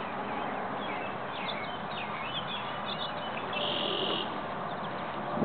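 Small birds chirping in short high notes over a steady outdoor hiss, with a brief buzzy high trill near the middle.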